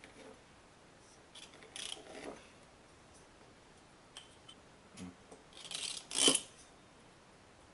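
Fluted metal pastry wheel rolling through sesame sablé dough along a stainless steel ruler on a wooden board: two spells of scraping and light metal clicking, about a second and a half in and again around six seconds, the second louder and ending in a sharp clink.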